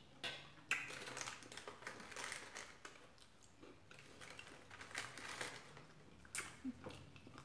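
Close-miked eating sounds: chewing, with many small wet clicks and crackles of the mouth. Near the end, a crackly rustle of a plastic cracker sleeve as a cracker is taken out.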